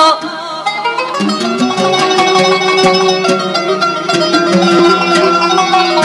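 Music: an instrumental break in an Arabic song, led by plucked strings playing quick runs of notes over a sustained lower line.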